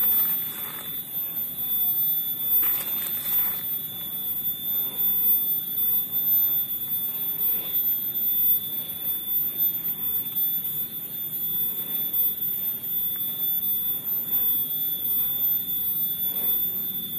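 Hoe blade scraping and chopping through loose garden soil, mixing in NPK fertilizer granules, with a few sharper scrapes near the start. A steady high-pitched tone runs underneath throughout.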